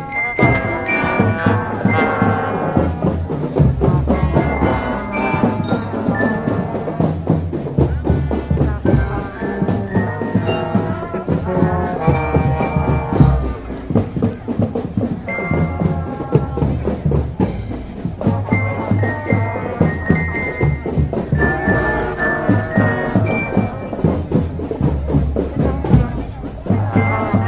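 A marching drum band playing a tune, with bell lyra (marching glockenspiel) carrying the melody over a steady beat of snare and bass drums.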